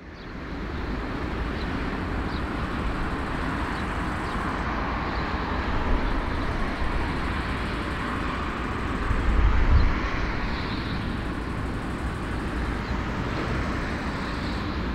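Airbus A340-313 taxiing, its four CFM56 jet engines at idle heard from a distance as a steady rushing hum over a deep rumble, swelling briefly about two-thirds of the way in.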